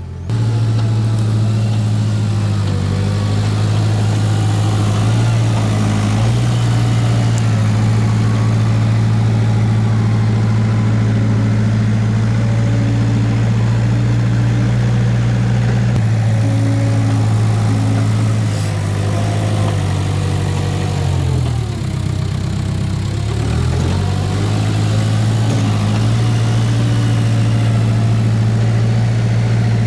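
Case 580K backhoe loader's diesel engine running steadily at working speed. About two-thirds of the way through its pitch drops for a couple of seconds, as if lugging under load, and then climbs back up.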